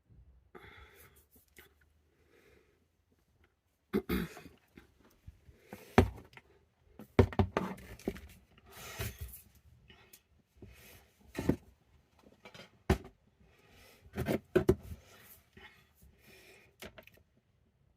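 Handling noises: a string of sharp knocks and clicks with brief rustling as small containers and packaging are picked up and moved about, starting about four seconds in after a quieter start.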